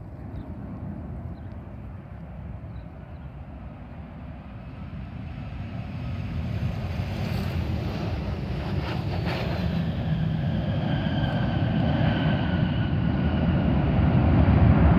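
Boeing 737 airliner landing: the jet engines' rumble grows steadily louder as it touches down and rolls out, with a high engine whine over it in the second half.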